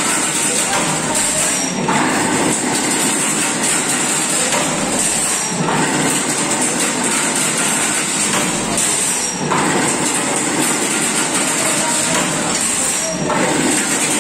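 Heavy-duty cam-type chain link fence machine running, a loud continuous mechanical clatter. A short break comes about every four seconds as the machine cycles.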